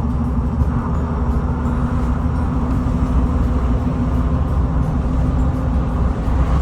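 Car driving along a road: a steady rumble of road and engine noise with a constant low hum.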